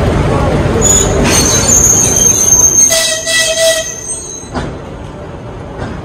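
Passenger train running on rails with a rumble, then a high-pitched metallic squeal of the wheels from about a second in to past the middle; the rumble fades after the squeal.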